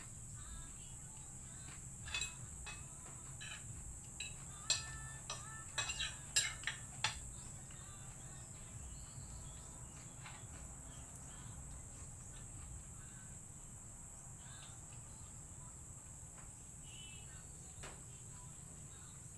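Steady high chirring of insects, with a run of sharp clicks and taps from eating by hand off a plate between about two and seven seconds in.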